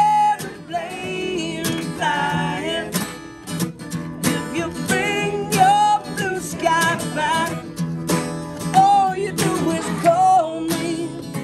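Two steel-string acoustic guitars strummed together in a steady rhythm, with male voices singing over them.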